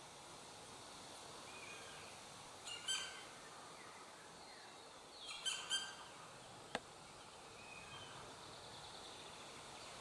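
Black woodpeckers calling: two short bursts of pitched calls, about three and five and a half seconds in. A single sharp click follows about a second later.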